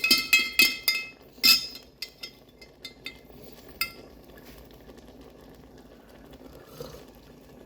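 Spoon stirring coffee in a cup, clinking against the sides about four times a second, stirring in the sugar at the bottom. One louder clink comes about a second and a half in, then a few faint clicks.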